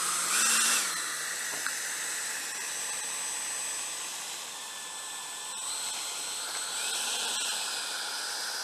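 Electric ducted fans of a Freewing F-4 RC jet whining as it taxis on the runway. There is a short throttle blip, rising and falling, about half a second in, then a steady lower whine with a thin high tone. Throttle is added briefly again near the end.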